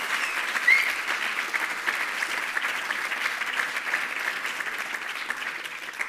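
Audience applauding: a dense, steady clapping of many hands that thins out and fades at the very end.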